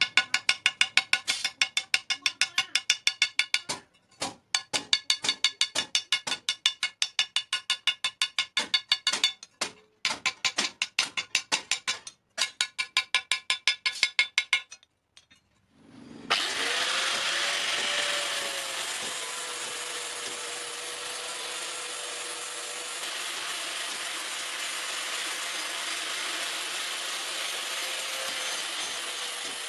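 Rapid, ringing hammer blows on metal, about four a second, in runs with short breaks: forging steel on an anvil. About halfway through the hammering stops, and an electric grinder spins up and runs steadily, its whine rising briefly and then settling as it grinds the metal.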